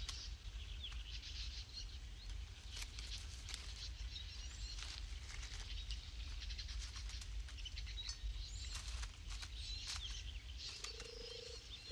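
Quiet outdoor ambience: small birds chirp now and then, and brush and twigs rustle in short clicks as meat bait is pushed in among them, over a steady low rumble. Near the end a short held tone comes in twice.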